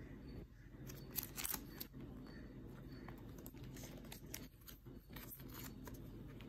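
Banknotes and clear plastic currency sleeves rustling and crinkling as they are handled, in short irregular crinkles, the loudest about a second and a half in, over a low steady background hum.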